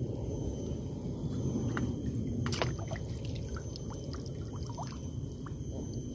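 Steady low wind rumble on the microphone. There is one sharp click about two and a half seconds in, and a few brief chirps after it.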